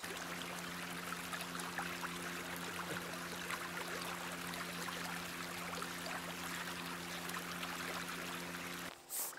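Steady rushing and trickling of flowing water with a low, steady hum of several tones under it. Both cut off together near the end.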